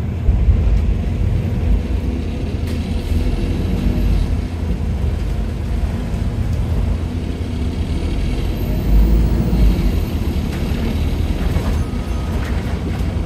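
Stagecoach London bus 36695's engine and air compressor running under way: a steady low rumble that swells about half a second in and again about nine seconds in.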